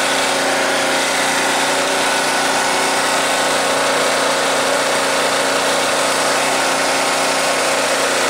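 Proforce 3125 portable generator's engine running steadily and smoothly at constant speed while the generator puts out power.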